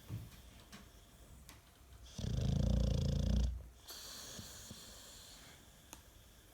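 An American Staffordshire Terrier snoring in its sleep. One loud, low, rattling snore comes about two seconds in and lasts over a second. A softer, hissing breath follows it.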